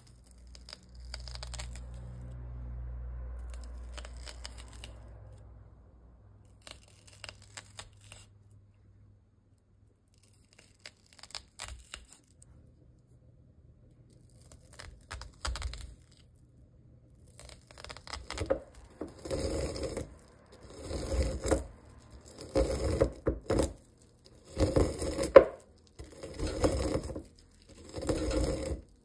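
A kitchen knife slicing raw sweet corn kernels off the cob, crisp tearing strokes. A few scattered strokes at first, then louder strokes about once a second over the last ten seconds.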